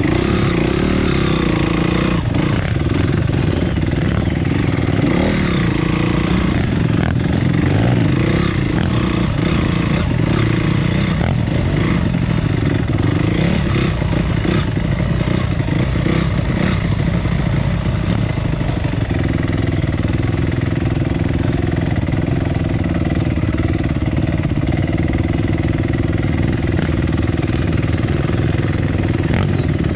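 Dirt bike engine running under way on a trail, with scattered knocks in the first half; from about two-thirds of the way through the engine note holds steadier.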